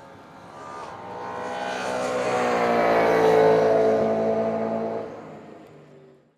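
A V8 racing saloon passing at speed: its engine note builds to a peak about three seconds in, then drops in pitch and fades as the car goes away. The sound cuts off abruptly near the end.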